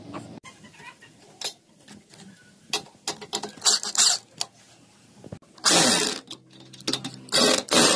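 Power drill driving a screw through a wooden plank into an iron bench frame, run in several short bursts, with the two longest near the end.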